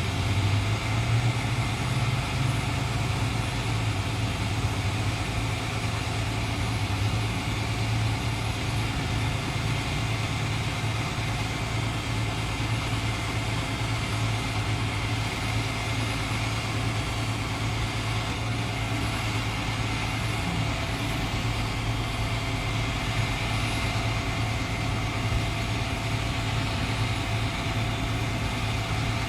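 A vehicle engine idling steadily: a constant low hum under an even hiss of fan and road noise, with no revving or sudden sounds.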